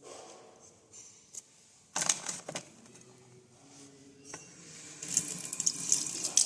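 A brief clatter of small hard objects knocking together about two seconds in, then a tap turned on, with water running into a sink from about five seconds.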